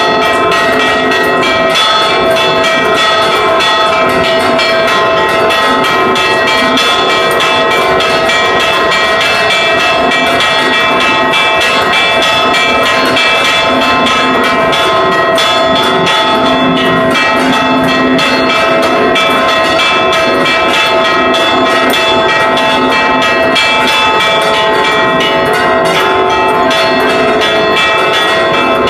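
Church bells ringing a rapid, continuous repique, struck by clappers pulled on ropes, heard loud and close from inside the bell tower. Several bells ring at once, so the struck notes overlap into a dense wash of ringing.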